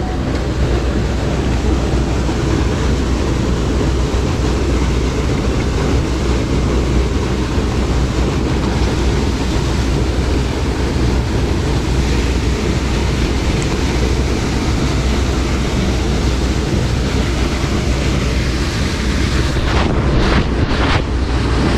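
Wind buffeting the microphone, a steady low rumble with a hiss over it. A few short knocks from handling come near the end.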